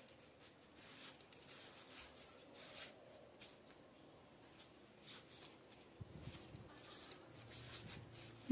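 Faint soft rubbing and rustling of a cotton pad being wiped over orchid leaves, in short repeated strokes.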